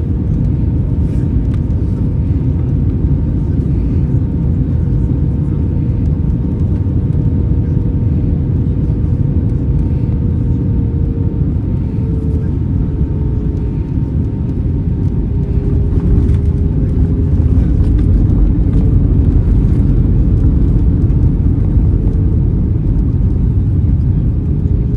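Airbus A321 airliner in flight, its jet engines giving a steady heavy rumble with a whine that steps slightly lower in pitch about halfway through, as the thrust is eased back.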